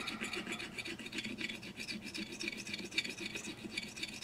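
Needle file rasping over a hard, cured A+B epoxy putty fill on a ceramic pitcher spout, in quick, even back-and-forth strokes.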